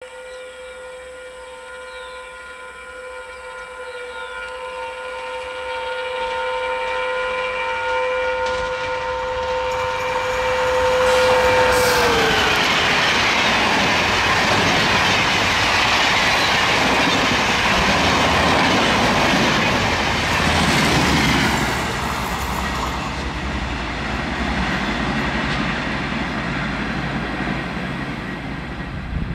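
A WAP-5 electric locomotive sounds one long, steady horn as it approaches at speed. About twelve seconds in, the horn dips in pitch and stops as it passes. The LHB coaches of the Shatabdi Express then rush by loudly with rail clatter, fading to a lower rumble as the train runs away.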